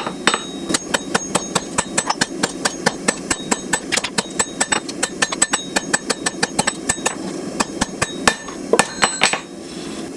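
Blacksmith's hand hammer striking hot steel on an anvil in a quick, even rhythm of about three to four blows a second, with a ringing note carrying between blows, as a knife blank is drawn out. The blows stop near the end.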